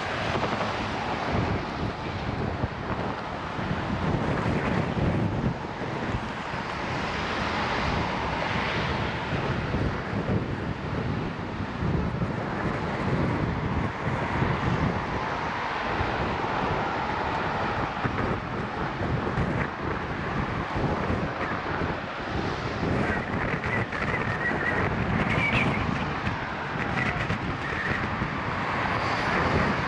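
Wind buffeting a riding cyclist's camera microphone, in steady gusty noise, with motor traffic passing on the road.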